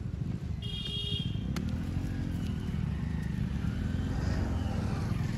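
Motor vehicle engine running, its pitch rising and falling twice, with a brief high horn beep about a second in.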